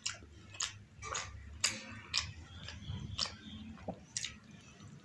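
Close-miked mouth sounds of a person biting and chewing deep-fried puri dipped in egg masala gravy: a run of sharp, irregular clicks, close to two a second.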